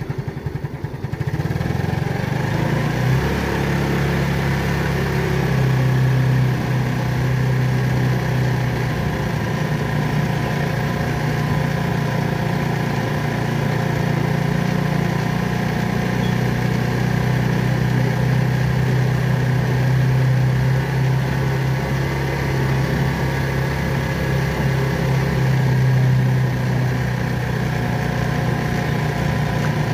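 Small motorcycle engine of a tricycle running as it carries its passenger along, rising in pitch as it picks up speed about a second in, then running steadily.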